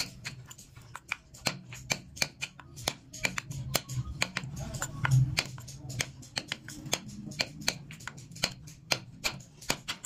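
Wooden mallet tapping a small carving chisel into a wooden board: quick, sharp taps, about three to four a second, with a duller low thump about halfway through.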